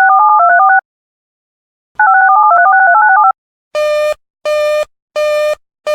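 Emergency alert broadcast tones: two bursts about a second long of paired electronic tones stepping rapidly up and down in pitch, a second apart. They are followed from about halfway in by a run of harsh, buzzy beeps, about three every two seconds.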